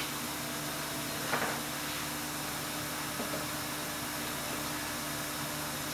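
Steady hiss of compressed air leaking from the air-ride suspension's fittings, with a faint steady hum underneath.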